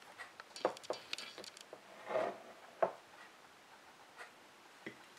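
Kitchen handling sounds of flour being sprinkled from a plastic tub onto raw chicken on a glass plate: small scattered clicks and rustles, then a brief scuffing swell and one sharp knock a little before the middle, followed by faint ticks as fingers work the flour into the chicken.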